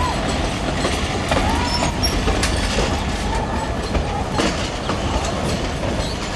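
Metre-gauge train running on the track: a steady low rumble with irregular clicks of wheels over rail joints, and several short squeals of wheel flanges that rise and fall in pitch.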